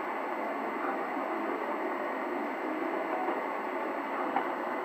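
Shortwave static from a regenerative receiver tuned to 5910 kHz in the 49-metre band: a steady rushing noise with no clear speech or music, a weak signal lost in the noise.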